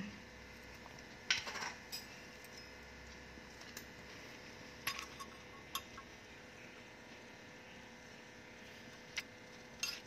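Light metallic clinks and taps of small metal utensils against a miniature metal kadai: a short cluster about a second in, a few around the middle, and two more near the end, over a faint steady hum.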